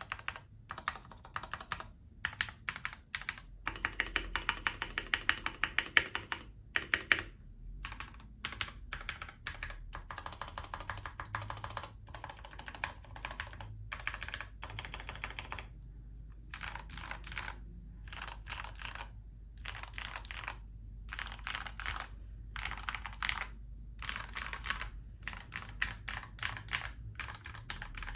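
Typing on a custom tenkeyless mechanical keyboard (XD87 kit) with lubed switches and stabilizers: rapid keystrokes in runs broken by short pauses, the fastest and loudest run a few seconds in.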